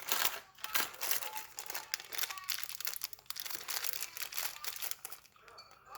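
Plastic packaging rustling and crinkling in irregular crackles as the staple gun kit's contents are handled, easing off near the end.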